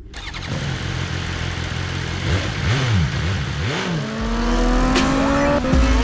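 BMW S 1000 RR's inline-four engine revved in two quick blips, the pitch rising and falling each time. About four seconds in a deep rumble starts, and the engine runs on with a steady note that slowly climbs in pitch.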